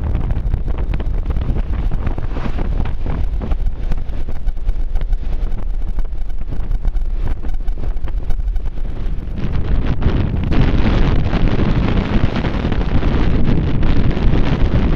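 Wind rushing over the microphone of a camera on a moving motor scooter, with the scooter's engine and road noise underneath. The wind noise grows louder about ten seconds in.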